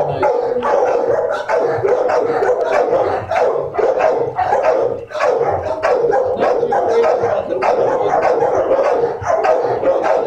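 Many dogs barking at once in a shelter kennel, the barks overlapping into a continuous din with no gaps.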